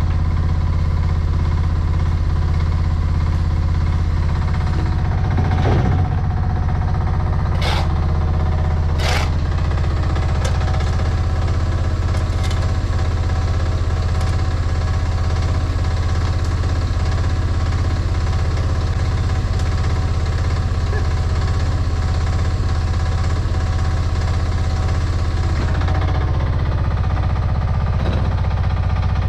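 Chinese mini excavator's diesel engine running steadily while digging, with a few sharp metallic clanks about six to nine seconds in.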